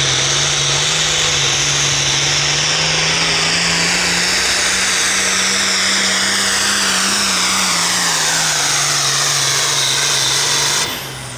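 International Harvester hot farm tractor's turbocharged diesel running flat out while pulling the sled, with a loud high whistle that falls steadily in pitch. The engine note climbs a little midway, then sags, and the sound drops off suddenly near the end.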